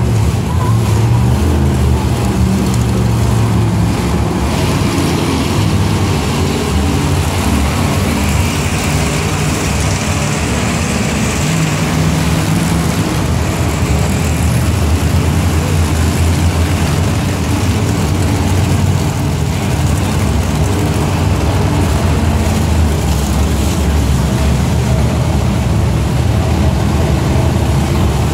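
Monster truck engines running and revving in an indoor arena, a loud, continuous low rumble that rises and falls in pitch as the trucks drive.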